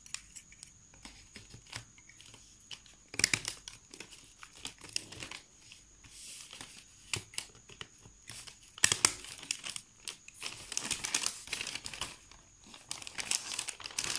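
A glossy glazed-paper sheet crinkling and rustling as it is handled and folded around a cardboard shoebox lid. There are two sharp stapler clacks, about 3 seconds and 9 seconds in.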